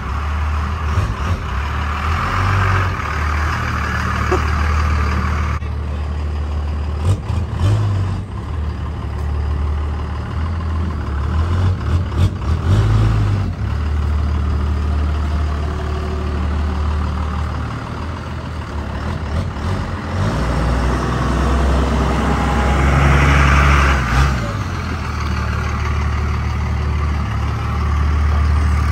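Dodge Ram pickup truck's engine running steadily at low speed, with a brief rise in engine speed about three quarters of the way through.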